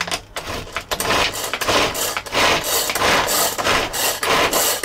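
Pull-cord food chopper (Bunbun Chopper) whirring with each quick pull of its string, about two pulls a second, its spinning blades mincing onion in the plastic bowl.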